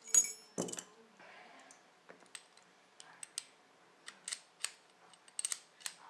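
Small metal clicks and clinks of a Mul-T-Lock #50 padlock, lock picks and keys being handled. There is a bright ringing clink near the start and a duller knock just after it, then scattered light clicks.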